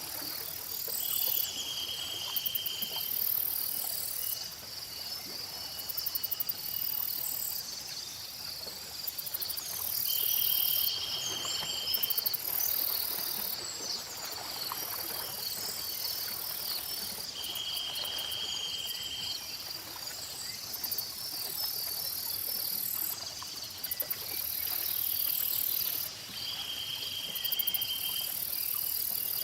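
Dense night-time-style insect chorus of crickets chirring steadily, with a buzzing trill about two seconds long that comes back roughly every seven to eight seconds, and scattered faint bird chirps.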